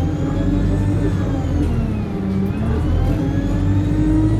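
Alexander Dennis Enviro200 bus engine heard from on board, pulling with a high-pitched turbo whine that follows the revs. The revs ease off over the first two seconds, then climb again, and the whine rises with them.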